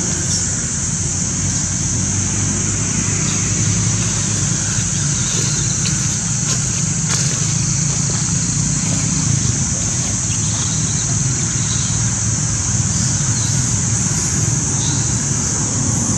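Steady outdoor background noise: a constant low rumble with a high, even hiss over it, and no clear animal call.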